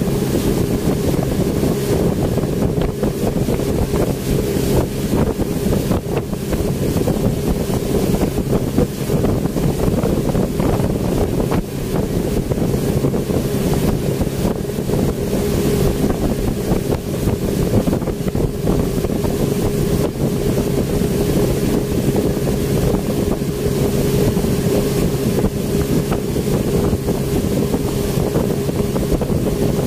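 Speedboat engine running steadily under way, a continuous drone with a constant pitch, while wind buffets the microphone.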